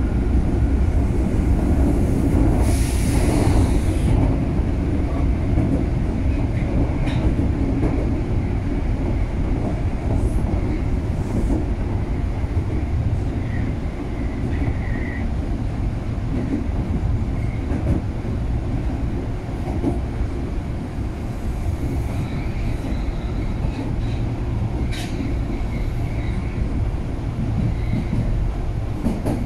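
Osaka Metro Sennichimae Line subway train running through the tunnel, heard from inside the car: a steady low rumble of wheels and running gear, with a brief hiss about three seconds in.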